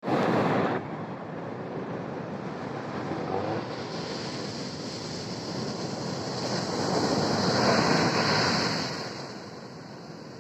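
Ocean surf crashing on the beach, with wind on the microphone. A large wave swells and breaks loudest about seven to nine seconds in, then fades.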